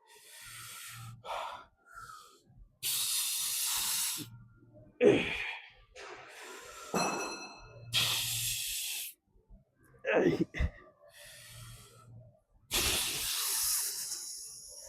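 A man breathing hard through reps of a weight-machine exercise. There are three long, forceful hissing exhales, a few seconds apart, with short strained grunts between them.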